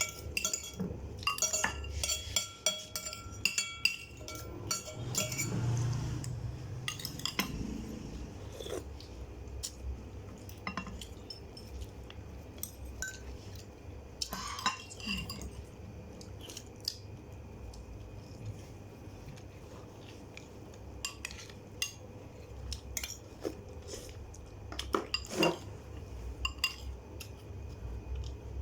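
Cutlery clinking against dishes, sharp knocks with a short ring. The clinks come thick and fast for the first few seconds, then scattered.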